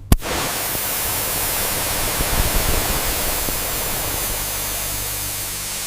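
A single sharp hit just after the start, then a steady, even hiss like static.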